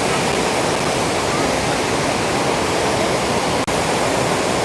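Kanthanpara waterfall's water falling and crashing in a loud, steady, even rush, with one momentary break a little over three and a half seconds in.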